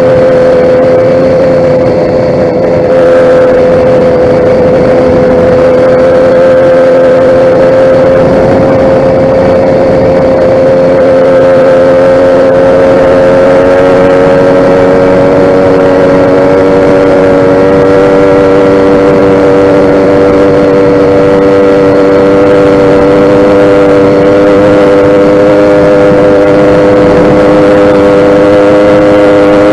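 YD100 two-stroke motorized bicycle engine running steadily at high speed, its pitch holding nearly constant with only a slow drift, and a brief dip in level about two seconds in.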